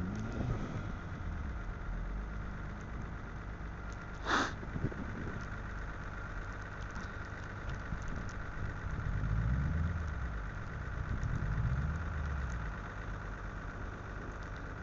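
Car engine running at low revs, swelling louder twice in the second half as it is revved or driven, with a brief sharp noise about four seconds in.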